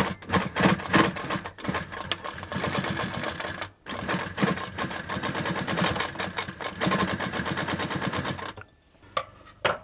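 Hightex 7138 industrial walking foot sewing machine stitching through layers of denim, a rapid, even clatter of the needle and stepping feet. It runs in two bursts with a brief stop about four seconds in, and stops near the end.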